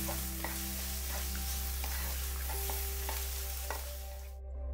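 Chopped onions, garlic and dried red chillies sizzling in hot oil in a kadai while a wooden spatula stirs them and scrapes the pan, the onions being sautéed to soften. The sound cuts out suddenly for a moment near the end.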